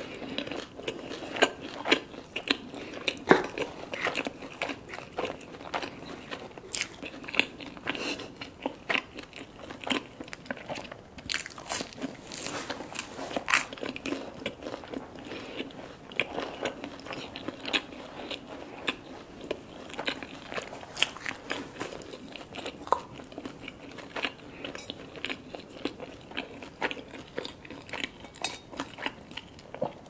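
Close-miked chewing of a mouthful of pan pizza crust: many short crisp crunches and wet mouth clicks, some louder bites now and then.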